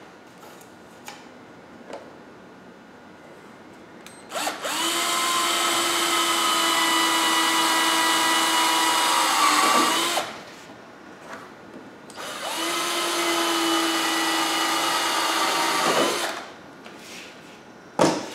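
Cordless drill boring screw holes through the black base of a radio unit: two steady runs of about six and four seconds, the motor's whine rising briefly as it spins up and winding down as each stops. A single knock near the end.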